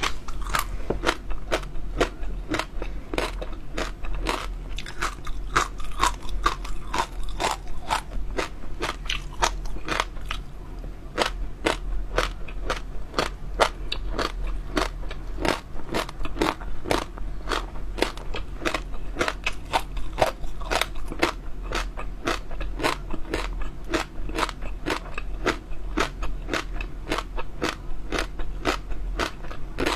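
Close-miked chewing of crunchy seaweed jelly pearls: a steady run of crisp crunches and clicks, several each second.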